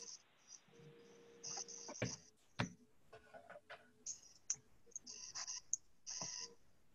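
Faint scattered clicks and short rustling noises, with two sharper clicks about two seconds in, over a faint steady hum.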